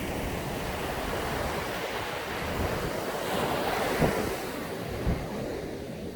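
Sea waves breaking and washing on a sandy beach, the surf swelling about three to four seconds in, with wind on the microphone. Two brief low thumps come about four and five seconds in.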